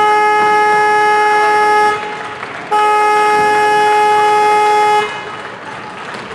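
A loud horn sounds two long, steady blasts of about two seconds each: the first is already sounding at the start and stops about two seconds in, the second starts just under a second later and stops about five seconds in.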